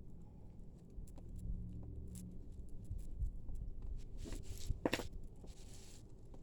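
Tangled costume jewelry being handled and picked apart: faint clicks and rustles of metal chains and beads, with a sharper clink about five seconds in.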